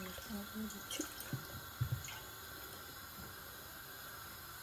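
Water poured from a glass measuring jug into a non-stick frying pan, with a few light knocks about one and two seconds in.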